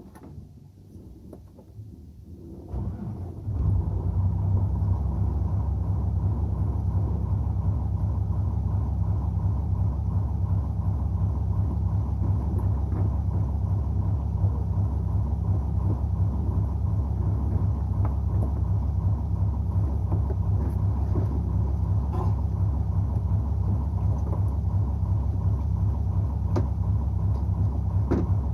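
A squid fishing boat's engine running at a steady low rumble, which swells up and becomes loud about three seconds in and then holds unchanged.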